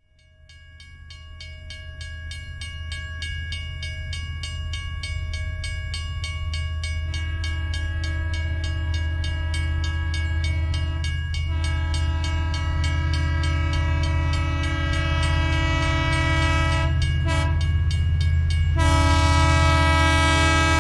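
Train horn sounding a long multi-tone chord over the steady low rumble of a train, which fades in and grows louder. More horn tones join about seven seconds in, and the horn breaks off briefly a few times near the end.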